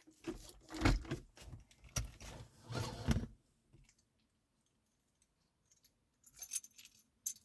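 Small hard objects handled close to the microphone: a run of clinking and rattling like jangling keys for about three seconds, then a pause, then a few more clicks near the end.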